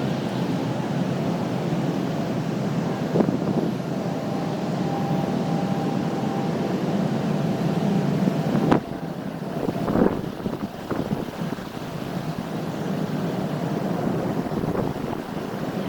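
Wind blowing through a stand of common reeds and buffeting the microphone, a steady rushing noise with a few stronger gusts. About nine seconds in there is a sharp click and the wind noise drops to a quieter level.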